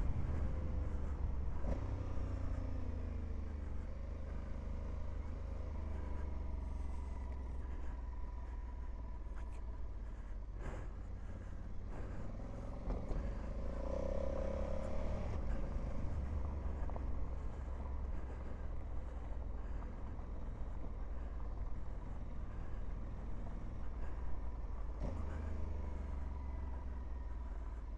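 Honda Africa Twin adventure motorcycle running at a slow riding pace on a dirt and gravel trail, its engine note rising and falling with the throttle under heavy wind rumble on the microphone. A few short knocks come through along the way.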